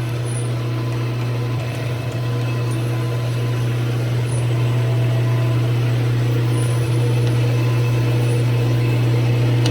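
Metal lathe running with a steady low hum.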